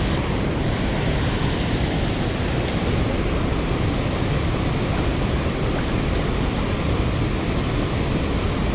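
Loud, steady rush of water pouring out of a dam's release gates into the tailwater, an even noise with no breaks.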